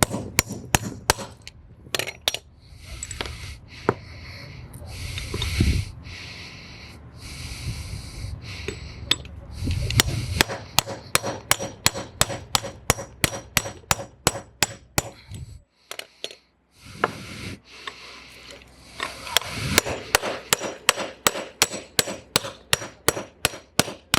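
Hammer blows driving a new wheel stud into a car's wheel hub: runs of sharp, even strikes about three or four a second, broken by stretches of scraping, rubbing noise.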